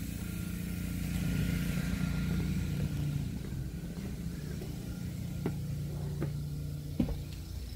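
Steady low mechanical hum, followed by three light knocks about a second apart near the end.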